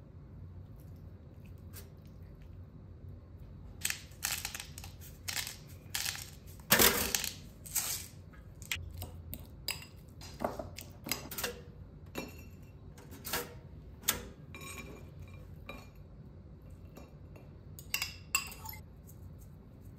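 A metal utensil clinking and scraping against a ceramic bowl while mashing avocado: irregular clinks that start a few seconds in, the loudest about seven seconds in, and a couple more near the end.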